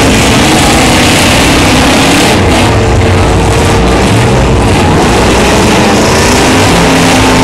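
Several demolition derby cars' engines running and revving together in a loud, steady din.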